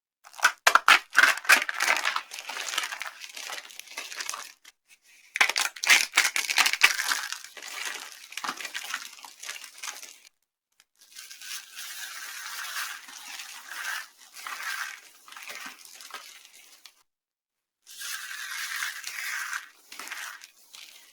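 Dry soap being crushed: four bouts of crisp crackling and crunching with short pauses between them, the first opening with a quick run of sharp cracks.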